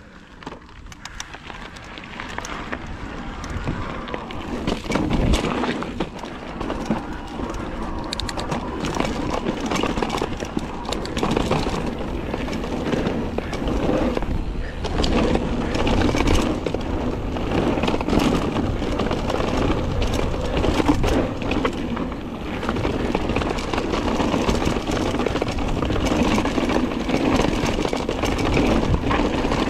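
Mountain bike riding downhill on a forest trail: tyres rolling over dirt, roots and stone slabs, the bike rattling and knocking over bumps. It builds up over the first few seconds as the bike picks up speed.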